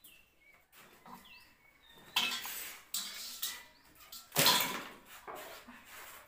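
Metal cooking pots and utensils clattering and scraping as they are handled and set down, in a few separate knocks with the loudest about four and a half seconds in.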